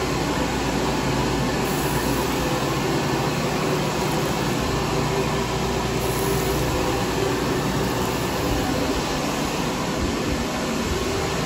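Steady rushing noise of a sensor faucet running water into a bathroom sink.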